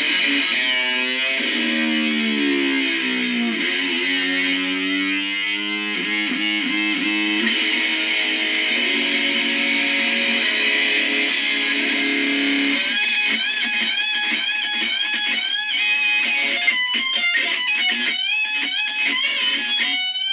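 Electric guitar played loud with a harsh, noisy tone, its notes sliding and bending in pitch. About 13 seconds in, the playing changes to rapid, wavering swoops up and down.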